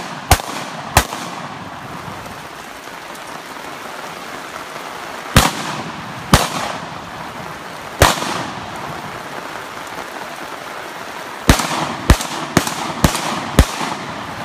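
About ten gunshots in uneven strings: two near the start, three single shots spaced out through the middle, then a quick run of five near the end, each a sharp crack with a short echo. A steady hiss of rain runs underneath.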